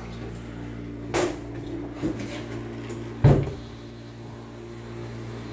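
Heavy door knocks over a steady machine hum: a sharp knock about a second in, a lighter one near two seconds, then a loud, deep bang just after three seconds.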